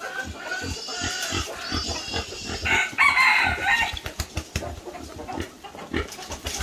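Farm animal calls: a run of short repeated calls, then a louder, longer call about three seconds in.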